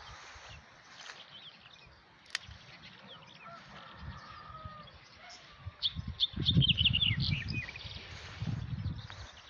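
Small birds chirping and twittering in quick, high notes, busiest about six seconds in. Low rumbling noise on the microphone is loudest in the second half.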